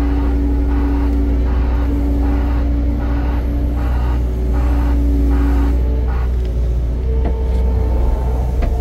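A large engine running steadily with a deep, unbroken low rumble and a few steady higher tones over it.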